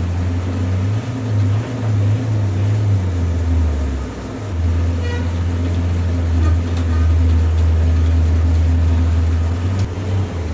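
Bench drill press running, a loud steady low hum from its motor, as the bit drills into a car cylinder head; the hum dips briefly about four seconds in.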